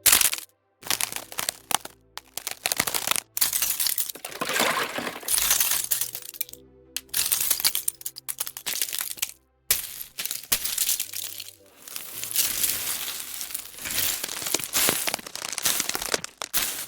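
A run of ice sound effects one after another: sharp cracks and hits, and longer crackling, crunching stretches of ice breaking and being crushed, separated by short gaps. Quiet background music with sustained low tones runs underneath.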